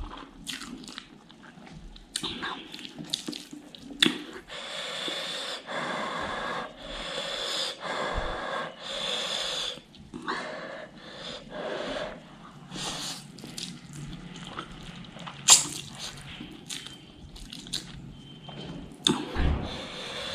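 A person eating very spicy ghost pepper noodles: mouth and chewing sounds with loud, hissing breaths drawn and blown out against the chili heat, mostly in a run of long breaths a few seconds in, and one sudden sharp sound midway.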